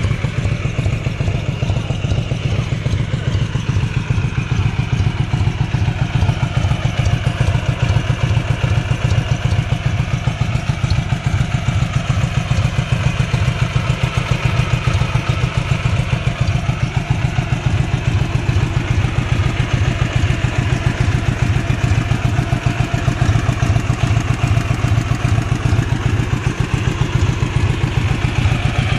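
Dnepr MT-11's air-cooled flat-twin engine running steadily, a fast even beat throughout.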